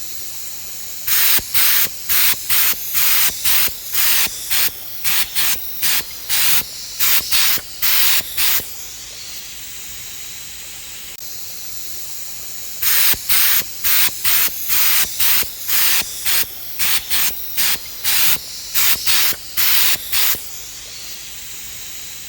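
HVLP spray gun on a compressor spraying PVA mold release in many short trigger-pulled bursts of hiss: two runs of quick bursts with a pause of about four seconds between them.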